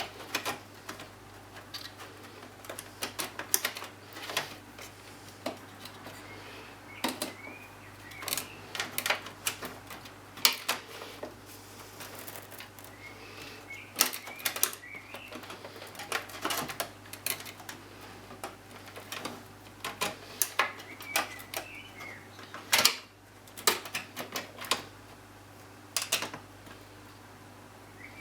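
Irregular clicks, taps and light knocks of computer parts being handled and fitted into a PC case as a new motherboard is installed, over a steady low hum.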